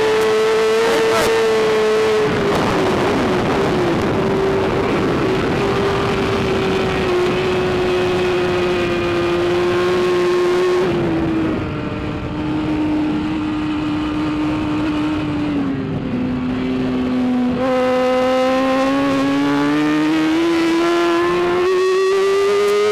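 BMW S1000RR inline-four superbike engine running hard, heard from a camera mounted on the bike. Its note sinks gradually through the first half and the middle as the bike comes off the throttle, then climbs steadily over the last few seconds as it accelerates again.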